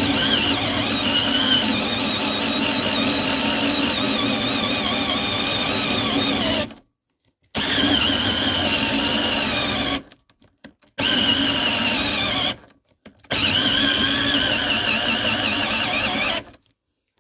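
20V cordless drill spinning a 40 mm metal hole saw into a wooden board under pressure, the cut hot enough to smoke a little. The motor runs with a wavering whine in four bursts, stopping briefly about 7, 10 and 13 seconds in.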